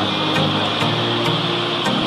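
Background music, its low notes held and changing every half second or so, over a steady hiss.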